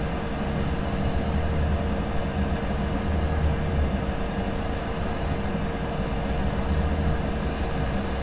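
Cheap hot-air rework station blowing steadily on air setting 3 at 380 °C onto a phone board's CPU: a steady airy hiss with a constant hum and an uneven low rumble. The CPU's solder has not yet melted.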